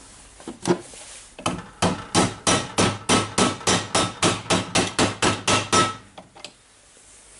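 Hammer rapidly tapping a long socket to drive a new ball bearing into the impact wrench's hammer housing: a single blow, then an even run of about five or six sharp metallic strikes a second for about four and a half seconds, which then stops.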